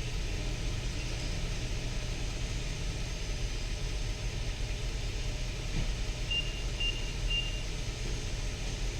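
Nissan Patrol's six-cylinder petrol engine idling steadily with a misfire, which the scanner's live data puts on cylinders 1 and 2.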